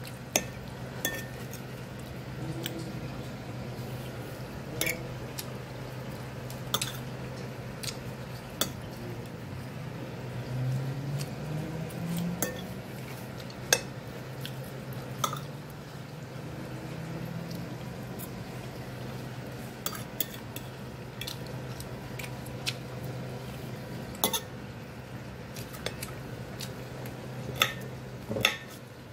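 Metal fork clinking and scraping against a ceramic plate while eating: sharp, irregular clicks every second or two, over a steady low hum.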